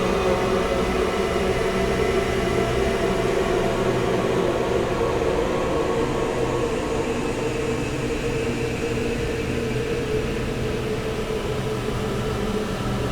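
Dark, ghostly ambient drone sound effect for horror: many held tones layered over a low rumble, shifting slowly, with the middle tones fading a little past halfway as higher tones come in.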